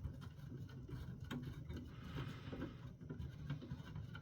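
Faint handling sounds of small metal hardware: light scattered clicks and taps as loosened standoffs are worked out by hand, with one sharper click about a second and a half in.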